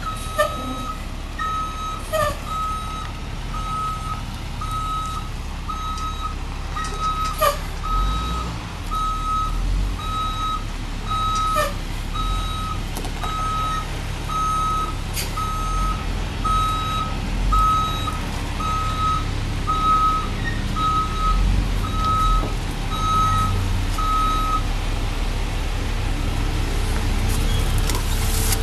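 Gravel delivery truck backing up, its reversing alarm beeping about once a second over the running diesel engine; the beeping stops near the end while the engine keeps running. A few sharp knocks sound now and then.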